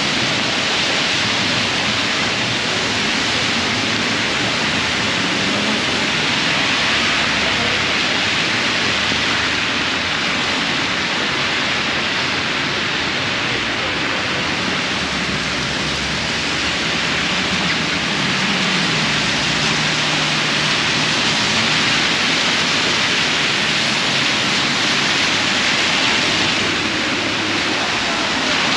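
Heavy rain falling on an open umbrella overhead and on the wet street, a steady even hiss, with a faint low hum of traffic beneath.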